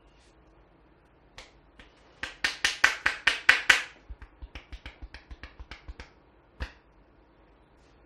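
Hair cracking: the barber's fingers pull and snap small tufts of hair on the scalp during a head massage. About eight loud snaps come rapidly in quick succession, about five a second, then a dozen softer ones, and a last single snap near the end.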